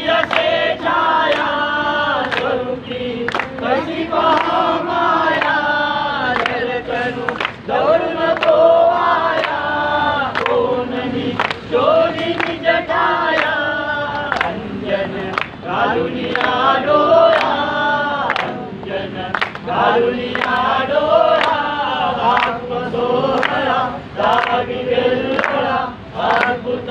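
A group of men and women singing a devotional bhajan together, keeping time with steady rhythmic hand clapping.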